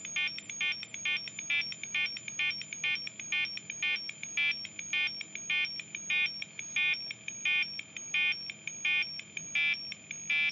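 Arduino Uno four-step sequencer playing a looping pattern of short square-wave beeps, about three a second, buzzy and 8-bit in tone. The note pitches shift as one of the step pitch knobs is turned.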